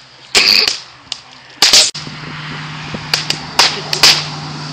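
Leftover firecrackers going off singly in a burning pile, about half a dozen sharp, irregularly spaced bangs. A steady low hum joins about two seconds in.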